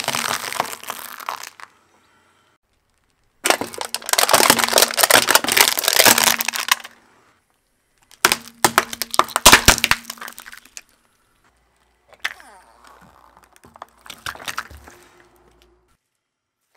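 A car tyre rolling slowly over objects and crushing them one after another: crunching and cracking as floral foam stuck with wooden skewers gives way, then a longer, loud bout of dense cracking, then plastic Play-Doh tubs cracking, and a quieter crunch near the end. Each bout is separated by a short silence.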